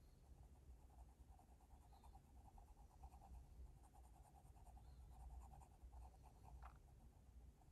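Faint scratching of a graphite pencil on paper: quick, short shading strokes, with one brief tick near the end.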